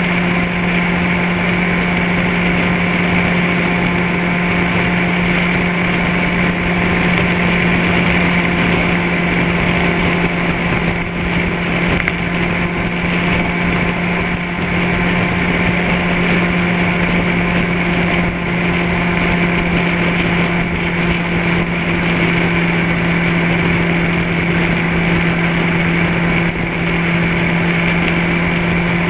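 Vehicle engine running at a steady speed, a constant-pitched hum under a steady rushing noise.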